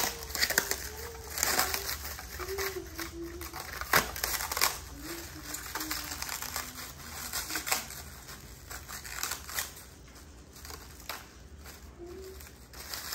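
Plastic wrapping being crinkled and pulled off a new RC crawler truck: irregular crackling rustles, busiest in the first few seconds and sparser toward the end.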